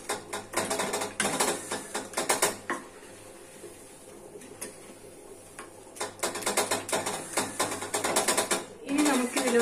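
Ladle scraping and knocking rapidly against the inside of an earthenware clay pot while mashing cooked tomatoes into a wet masala. The clattering strokes stop for about three seconds in the middle, then start again.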